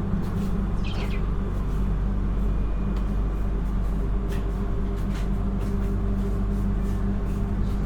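Passenger train running, heard inside the carriage: a steady low rumble and hum, with a few light clicks and rattles.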